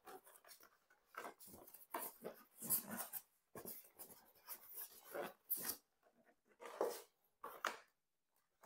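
Cardboard box flaps and a polystyrene foam packing insert being handled, giving faint, irregular rustling and scraping, with a short pause near the end.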